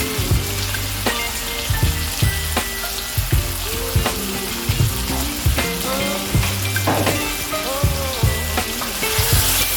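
Beef sausages sizzling as they fry in a pan, under background pop music with a steady beat and bass.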